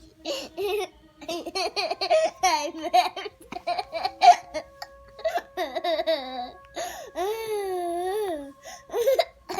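Young child laughing and squealing in short high-pitched bursts, with one long drawn-out squeal that rises and falls about seven seconds in.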